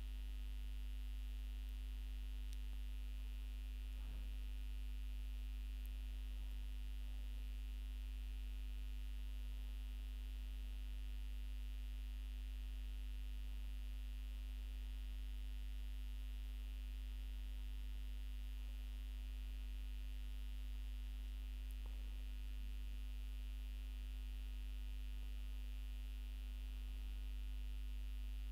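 Steady low electrical hum with a faint higher steady tone above it, unchanging throughout.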